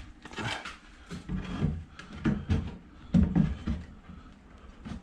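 Irregular knocks and clunks of wooden planks and clamps being handled, several of them heavy low thuds, loudest a little past the middle.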